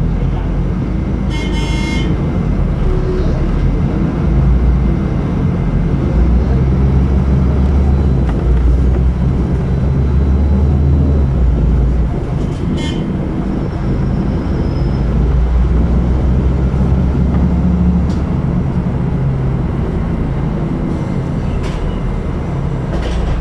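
City bus in motion, heard from inside: a steady low engine rumble with road noise. About a second and a half in, a brief high-pitched tone sounds over it.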